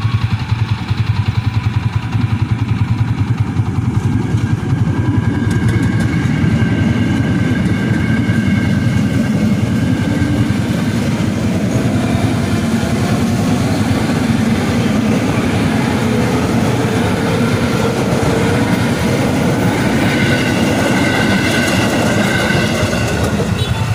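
KRL Commuter Line electric multiple-unit train running past over the level crossing, its wheels rumbling on the rails, with steady high tones that come in a few seconds in and again near the end. A motorcycle engine idles close by.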